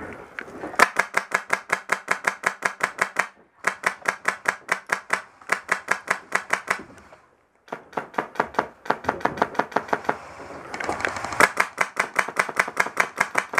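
Airsoft rifle firing on full auto in several long bursts, about ten sharp shots a second, with short pauses between bursts.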